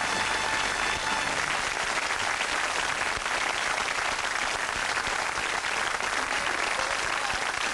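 Studio audience applauding steadily, with the last notes of the show's music fading out in the first second or so.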